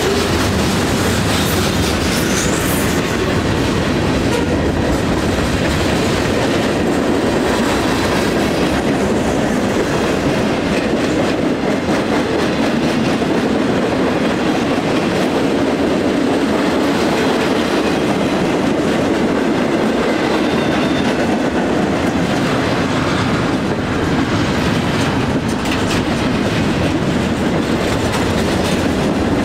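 Mixed freight train cars rolling past close by: a loud, steady rumble and clatter of steel wheels on rail, with the clickety-clack of wheels passing over rail joints.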